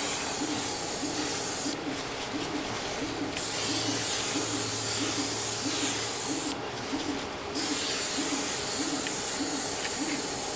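Aerosol can of Suave Max Hold hairspray spraying in a steady hiss onto a glass 3D-printer bed, with two brief pauses. Underneath, a faint low tone pulses about twice a second.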